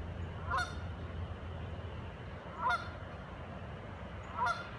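Canada geese honking: three short honks about two seconds apart, over a steady low rumble.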